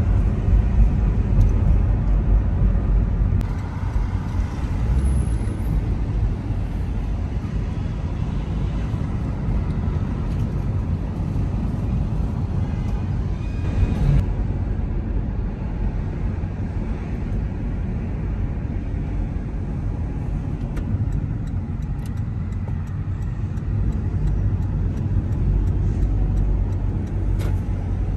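Car driving, heard from inside the cabin: a steady low rumble of engine and tyre noise, with a short jump in the sound about halfway through.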